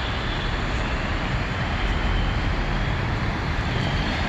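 Steady city traffic rumble: a continuous, even noise weighted to the low end, with no single event standing out.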